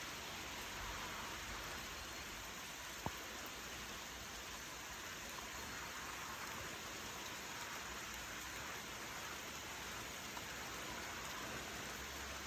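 Steady rain falling, an even hiss throughout, with a single sharp tick about three seconds in.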